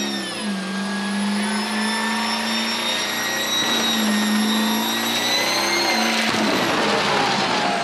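Diesel pickup truck spinning donuts at high, held revs with its tyres spinning, a high whine riding over the engine note. About six seconds in the engine note breaks and a rougher hiss swells.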